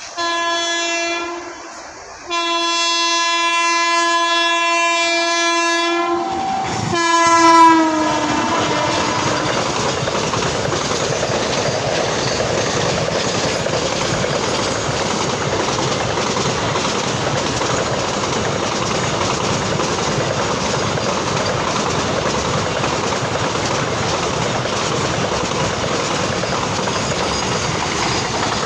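Indian Railways electric locomotive sounding its horn: a short blast, then a long blast whose pitch drops near its end as the locomotive passes. A container freight train then runs by at speed, its wheels on the rails making a steady noise.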